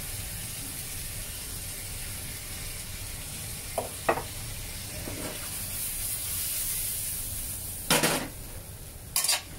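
Cauliflower stir-fry with dried shrimp and garlic sizzling steadily in a frying pan over low heat. A spatula clicks and scrapes against the pan a couple of times about four seconds in, knocks loudest about eight seconds in, and clicks again near the end.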